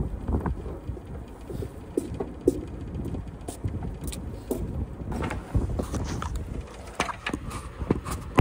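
Work boots walking across a wooden flatbed trailer deck: irregular knocks and scuffs over a low wind rumble on the microphone. One sharp, louder knock right at the end as the phone lying on the deck is handled.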